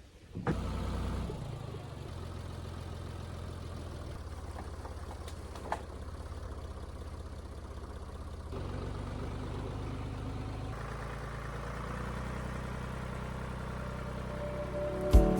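Engine of the vehicle moving the log trailer, running steadily at low speed. Its note shifts about halfway through and again a couple of seconds later.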